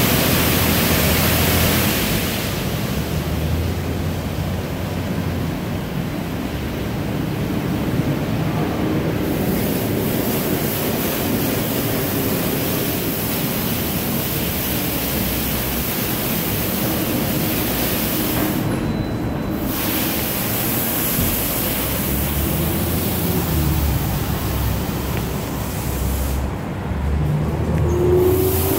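Washworld Razor touchless car wash gantry spraying water jets over a pickup truck: a steady hiss of spray over a low hum. The hiss thins out and comes back several times as the spray stops and restarts.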